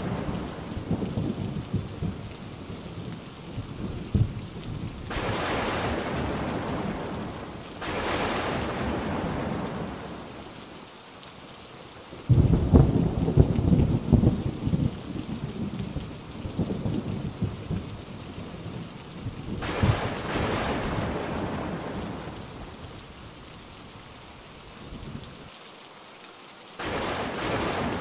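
Thunderstorm: heavy rain falling steadily with rolling thunder. A loud rumble starts suddenly about twelve seconds in and dies away over several seconds, and the storm noise swells and fades again several times.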